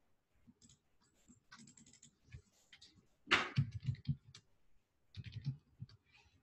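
Typing on a computer keyboard: irregular runs of keystroke clicks, loudest in a quick cluster a little past halfway and another shortly before the end.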